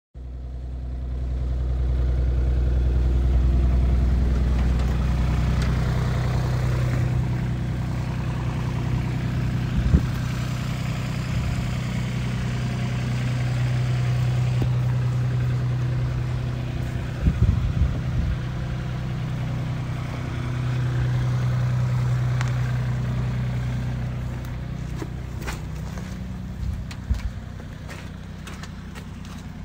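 Mini excavator's diesel engine running steadily under digging load, rising and falling slowly in strength, with a few short knocks, a cluster of them about two thirds of the way through.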